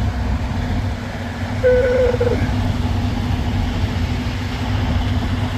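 Diesel engine of a 2016 Freightliner Cascadia semi truck idling steadily, with a short wavering tone about two seconds in.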